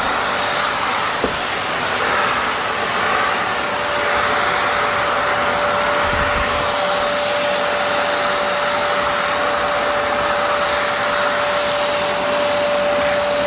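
Kärcher WD 1 wet and dry vacuum cleaner running steadily on suction, a constant whine over the rush of air, with a faint tick about a second in.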